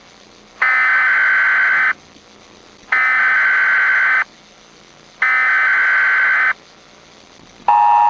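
Emergency Alert System SAME digital data tones: three identical bursts of about a second and a quarter each, spaced about a second apart. Near the end the steady two-tone EAS attention signal starts.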